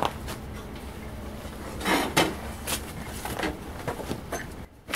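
Clanks and knocks of metal tongs on a 50-pound red-hot steel slab as it is lifted out of a forge furnace: half a dozen separate knocks, the loudest about two seconds in, over a faint low rumble.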